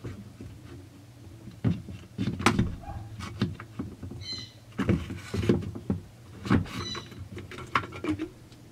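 Long pliers clicking and scraping against the plastic chassis of a Husqvarna 455 Rancher chainsaw as the rubber fuel line is worked out through it, with irregular knocks and two short squeaks.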